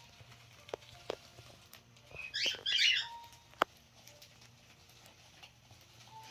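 Cockatiels pecking and scratching at paper gift packages: scattered small clicks and rustling, with a brief loud crinkling burst about two seconds in and one sharp tap soon after.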